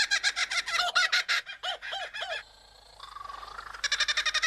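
Superb lyrebird singing its mimicked song: rapid repeated cackling calls like a kookaburra's laugh, a short pause about two and a half seconds in, then a brief wavering whistle before the rapid calls resume.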